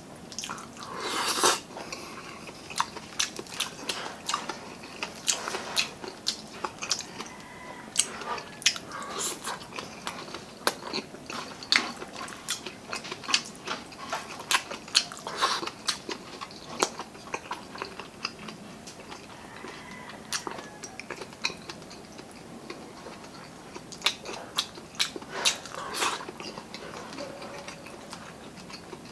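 Close-miked wet chewing and lip smacks of a person eating by hand, with crunchy bites of crispy fried pork belly (lechon kawali) among them.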